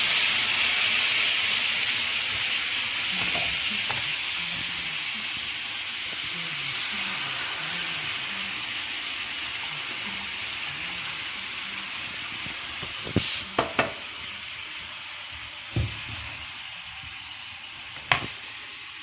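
Squid frying in a pan with canned peeled tomatoes just added: a steady sizzle that slowly dies down. A few sharp knocks sound over the last few seconds.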